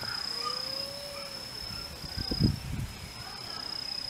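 Insect song outdoors: a steady, high, thin trill that breaks off briefly once or twice, with faint chirps behind it. A brief low thump about halfway through is the loudest sound.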